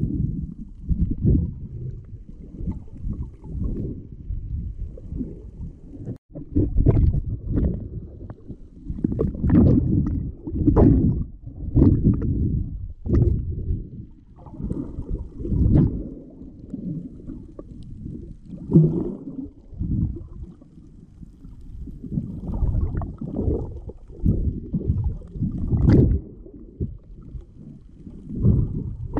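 Muffled underwater rumble and sloshing of water moving around a submerged camera, swelling and fading irregularly every second or two, with a few sharper knocks.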